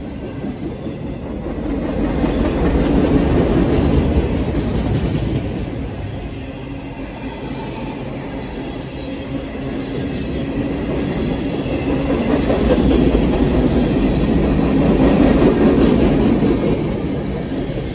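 Freight train cars (covered hoppers and tank cars) rolling past close by: a continuous rumble and clatter of steel wheels on the rails, swelling louder twice.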